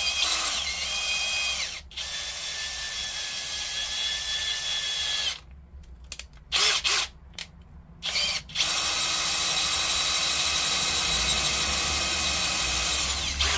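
Bosch cordless drill boring out a stripped head-bolt hole in the engine block with a 13/32-inch bit, making room for a HeliCoil thread insert. The drill whines steadily, drops out briefly about two seconds in, is pulsed in several short bursts around the middle, then runs steadily again and stops at the very end.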